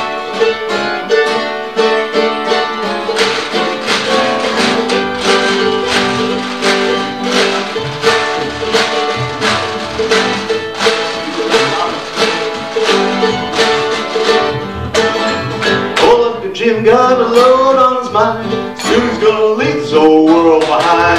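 Jug band playing an instrumental break: strummed acoustic guitar and picked mandolin over a steady country-blues beat, with held chord tones underneath. About sixteen seconds in, a wavering lead line enters on top, sliding up and down in pitch.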